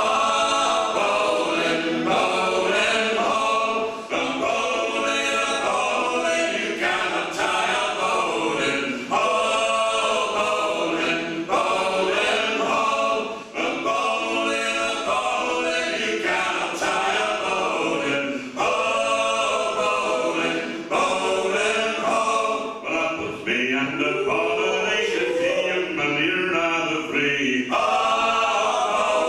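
Four men singing a folk song unaccompanied in close harmony, with short breaths between phrases.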